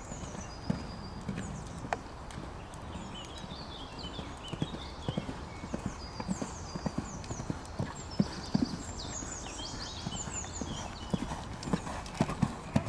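A horse cantering on an arena's sand footing: a steady run of dull hoofbeats, louder and closer together near the end as the horse passes close by.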